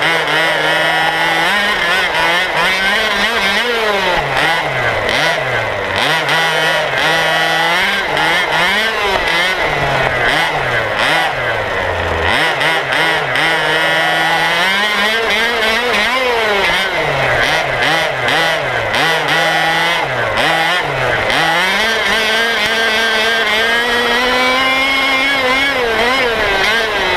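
Two-stroke petrol engine of a large-scale FG Baja 4WD RC buggy running hard, its pitch rising and falling over and over as the throttle is blipped and held while the buggy drives.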